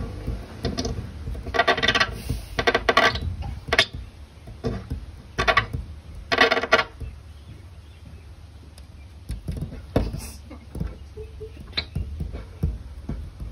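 A puppy's tongue and mouth rubbing and squeaking against a glass door pane in a series of short bursts over the first seven seconds, then quieter, with a few sharp knocks later on.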